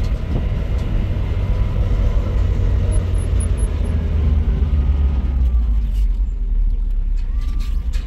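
Steady low rumble of a motor vehicle being driven.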